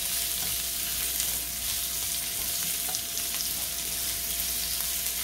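Freshly added sliced onions sizzling in hot oil with cumin seeds in a nonstick frying pan while being stirred with a spatula: a steady hiss with small scattered crackles.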